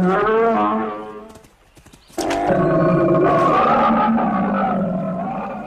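A cartoon horse whinnying with a wavering pitch, then a cartoon bear's long roar, about three and a half seconds long, starting about two seconds in.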